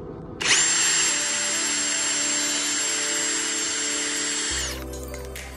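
Ryobi ONE+ HP cordless drill spinning a bit to drill a pilot hole into wood, running steadily with a high whine for about four seconds, then stopping near the end. Background music plays throughout.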